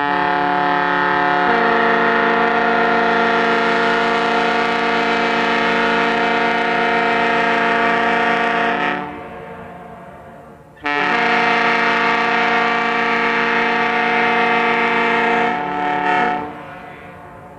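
Compressed-air horn sounding a chord of several notes in two long blasts. The first is already going and stops about nine seconds in, with one note shifting early on; the second starts about two seconds later and lasts about five seconds.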